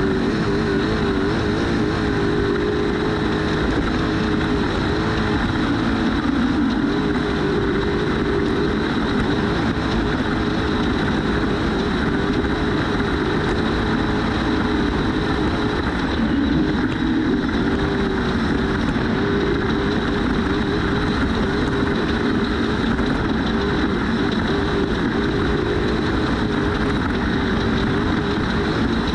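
Trophy truck's race engine running hard under steady load, its note wavering slightly and dipping briefly around the middle and again near the end, over a constant rush of road and wind noise. A thin, steady high whine sits over it throughout.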